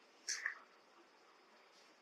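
A pen drawing a short line on paper: one brief, faint scratch about a quarter second in, then near silence.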